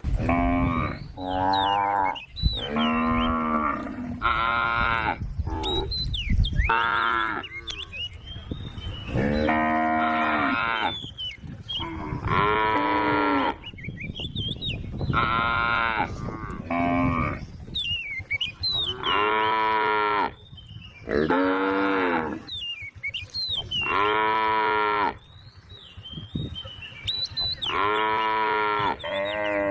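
Cows mooing over and over: about a dozen separate calls, each roughly a second long, some falling in pitch at the end.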